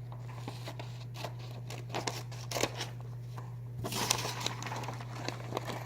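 Scissors cutting paper: a series of short irregular snips, with a burst of paper rustling about four seconds in.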